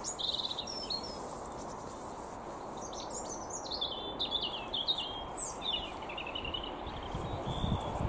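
Songbirds singing and chirping in short phrases over a steady low background rumble, with a few deeper low gusts of noise near the end.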